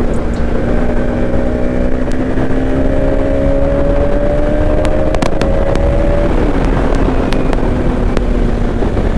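Motorcycle engine running under way, with wind and road rumble. Its pitch rises slowly, then drops about six seconds in as the throttle eases.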